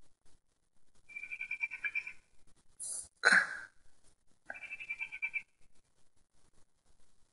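Cat chattering at a bird: two fast, pulsed bouts of chatter about a second long each, the second about three seconds after the first. Between them comes a short, louder sound.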